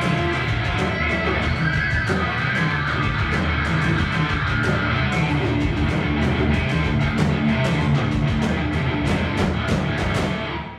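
Live band playing electric guitars over a drum kit, with a steady run of cymbal and drum hits; the song ends suddenly near the end.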